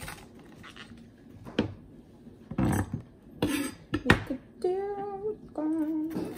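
Chef's knife cutting through a green bell pepper and knocking on a wooden chopping board, a few separate cuts. About two-thirds of the way in, a woman starts humming a tune.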